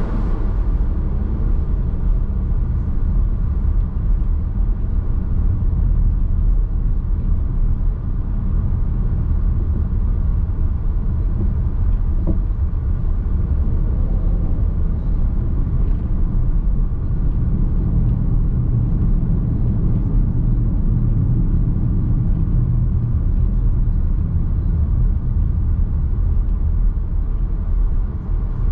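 Nissan X-Trail Hybrid driving on the road, heard inside the cabin: steady low road and tyre rumble with the car's running noise, unchanging throughout.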